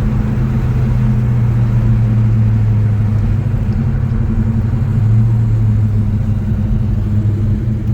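Freshly rebuilt Pontiac 400 V8 of a 1970 GTO running steadily on the road during break-in, a deep even engine drone whose note shifts slightly about five seconds in.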